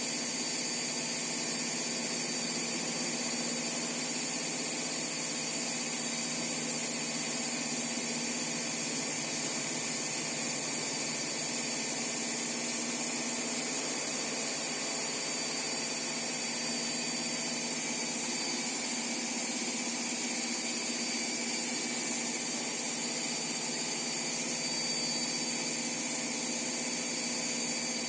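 Washing machine running steadily, a continuous mechanical hum with a high-pitched whine over it.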